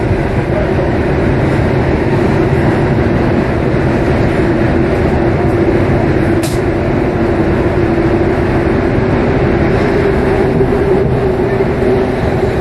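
Rubber-tyred Paris Métro line 4 train running steadily through a tunnel, heard from inside at the front: a constant rumble of tyres and running gear with a steady hum over it. A single short, sharp click about six and a half seconds in.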